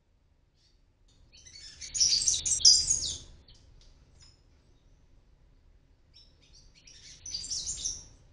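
Palm tanagers chirping close by: a rapid flurry of high, short chirps about two seconds in, and a second, shorter and quieter flurry near the end.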